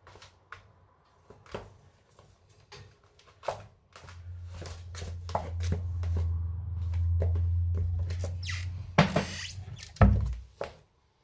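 Dishes and cutlery being taken out of a dishwasher and set down: scattered clinks and knocks, with a couple of louder thunks near the end. A low steady hum runs under the middle of it for several seconds.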